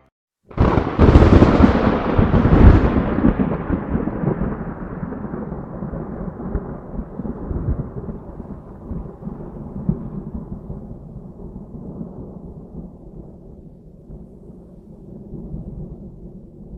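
A sudden loud thunderclap about half a second in, followed by long rolling thunder that slowly fades.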